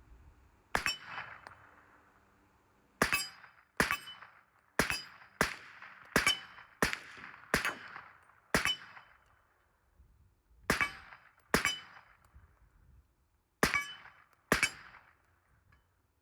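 About a dozen shots from a 300 Blackout pistol at an uneven pace, each with the clang of a steel target ringing after the hit.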